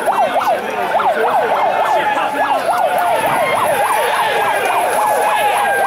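Siren yelps: fast rising-and-falling wails repeating several times a second, overlapping as if from more than one siren, with a steady held tone joining about a second in.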